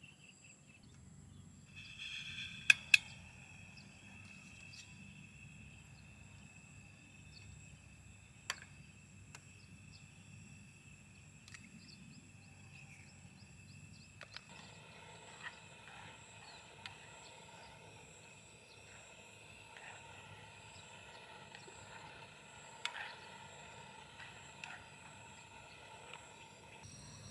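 Crickets or other night insects trilling steadily in a high, even tone, with a few sharp clicks and taps; the loudest are two clicks close together about three seconds in.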